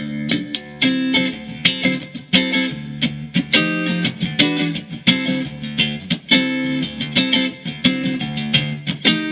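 Mexican-made Fender Stratocaster electric guitar tuned to drop D, played in a continuous run of picked notes and strummed chords, each attack sharp and ringing briefly, freshly set up.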